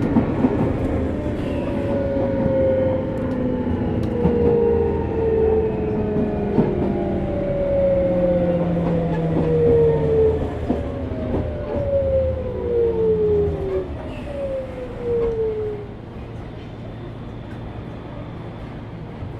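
Sotetsu New 7000 series motor car's Hitachi GTO-VVVF inverter and traction motors whining in several falling tones as the train brakes, over the rumble and clatter of the wheels; this car is known for an unusual motor noise. The motor tones die away about 16 seconds in, leaving a quieter rolling rumble.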